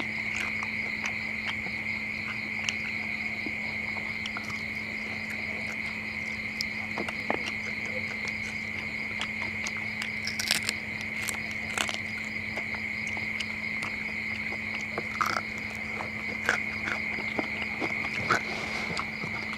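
Crickets chirping in a steady, loud chorus at night. Scattered sharp crunching clicks come from chewing crispy deep-fried frog close to a clip-on microphone, most of them in the second half.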